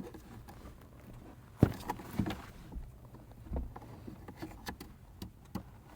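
Scattered light clicks and knocks from hands adjusting a USB charging adapter in a truck's dash socket, the sharpest knock a little over a second and a half in.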